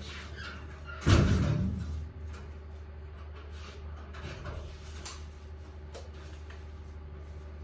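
Wooden room door shut with a heavy thump about a second in, then a few faint clicks.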